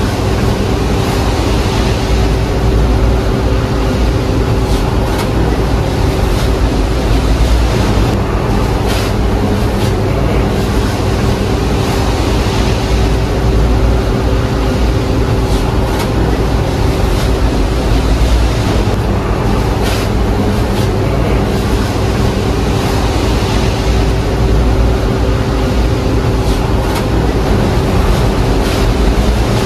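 Steady mechanical drone: a low rumble with a constant hum and some faint ticking over it.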